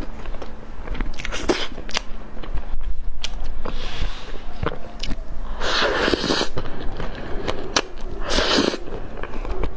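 Close-miked eating sounds: mouth clicks and lip smacks while chewing chocolate cake, with plastic gloves rustling on the cake, then two louder bites into a soft chocolate-frosted cake, about six and eight and a half seconds in.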